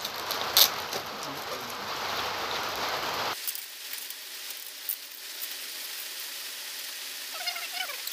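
Plastic crinkling with a few sharp clicks as a plastic bag holding a betta fish is opened by hand, over a steady hiss that drops off abruptly about three seconds in. A few faint squeaks come near the end.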